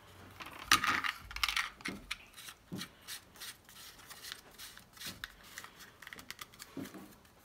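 Handling noise of an Alpine Type S tweeter being fitted by hand into a plastic adapter ring: irregular plastic scrapes and clicks with rustling of its wire leads, loudest about a second in.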